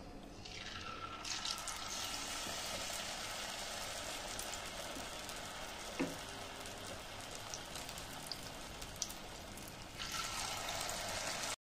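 Batter-coated potato pieces sizzling and bubbling in hot oil in a karahi as they are dropped in one by one. The sizzle swells about a second in and surges again near the end as another piece goes in. There is a single light knock about halfway, and the sound cuts off abruptly just before the end.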